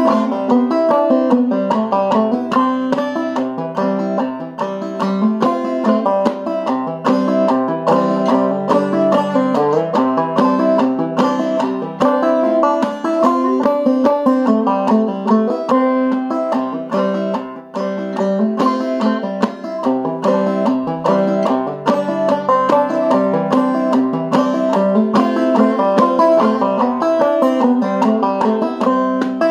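Five-string banjo played clawhammer style in eCGCD tuning, double C with the fifth string lowered to E: a steady, unbroken run of plucked notes and drone-string strokes.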